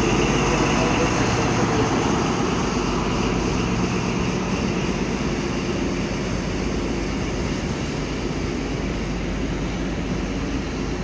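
XPT power car's diesel engine running loudly as the train moves off past the platform, a steady engine drone with the carriages following. It eases off slightly as the power car draws away.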